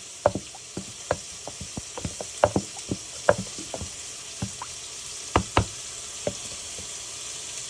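Onions frying in oil with a steady sizzle, and a scattering of irregular light knocks and clicks over it.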